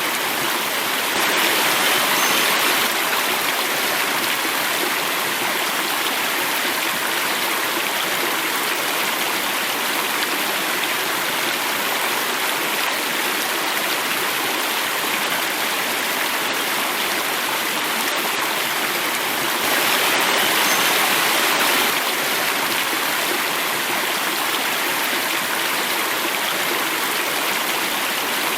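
Water flowing and falling in a stream cascade: a steady, even rushing, swelling slightly louder twice, about two seconds in and again about twenty seconds in.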